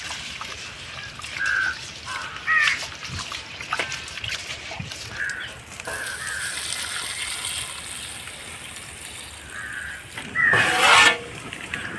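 Water trickling and sloshing as rice is rinsed, with short bird calls coming again and again and a louder call about ten seconds in.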